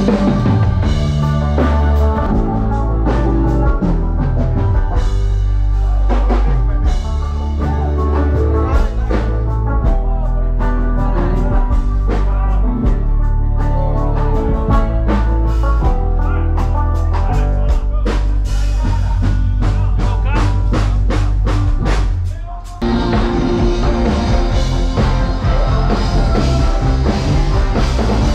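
Loud band music with drum kit, bass and guitar playing steadily. It drops out for a moment about 23 seconds in, then comes back in a new section.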